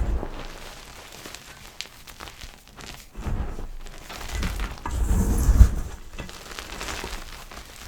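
Gym chalk being crushed, giving soft crackles and crunches. Scattered small clicks at first, then denser, heavier crunching from about three seconds in, loudest between five and six seconds.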